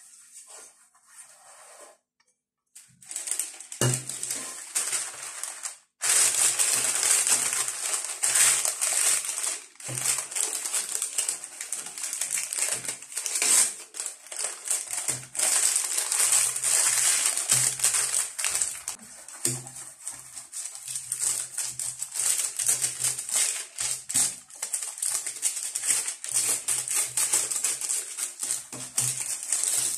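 Baking parchment crinkling and rustling as it is crumpled, pressed and folded into a round metal cake pan, a dense crackle of rapid irregular rustles that starts about three seconds in.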